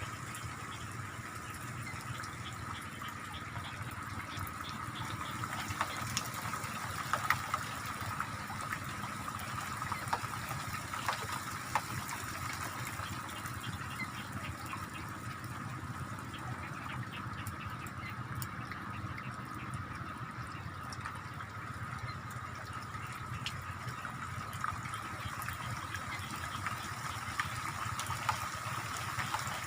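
Rain falling steadily, with scattered drops ticking close by, over a steady high-pitched drone.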